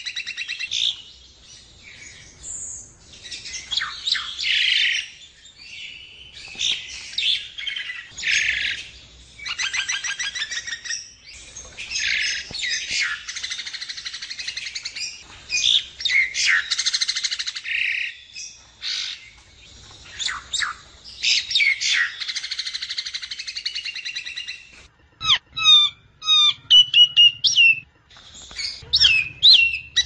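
Black myna (sáo đen) calling: a long run of harsh, scratchy chattering and squawks, giving way near the end to a string of short, clear whistled notes that swoop up and down.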